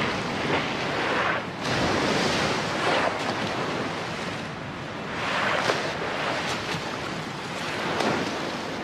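Sea water rushing and splashing as bottlenose dolphins porpoise fast through the surface, the noise swelling and easing every second or two.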